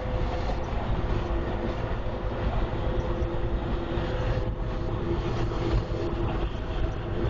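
Steady engine and road noise inside a semi-truck cab moving at highway speed: a low rumble with a steady hum over it.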